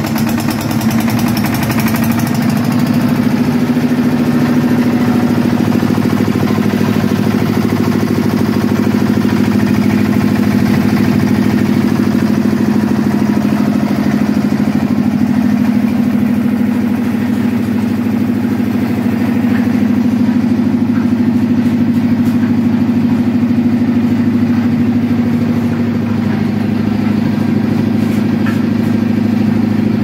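Small diesel engine of a concrete mixer running steadily at a constant speed. It has a rapid sharp pulsing in the first couple of seconds before it settles into an even drone.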